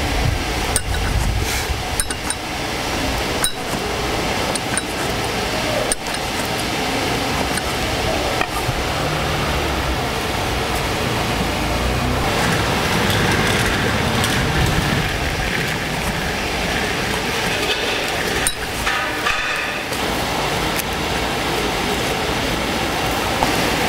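Kitchen knife slicing through pressed pork and knocking on a wooden cutting board, a string of sharp taps mostly in the first few seconds, over steady market background noise.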